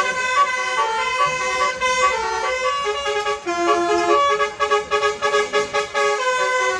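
Basuri 'telolet' multi-tone bus horn playing a run of short held notes that change pitch every fraction of a second, like a tune.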